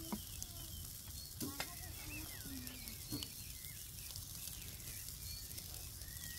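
Raw meat patties sizzling on the grate of a hot charcoal grill, a steady hiss, with a few short taps as more patties are laid down.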